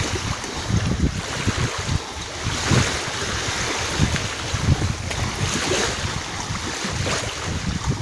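Wind gusting against the microphone over small waves breaking and lapping at the water's edge, rising and falling irregularly with several brief surges.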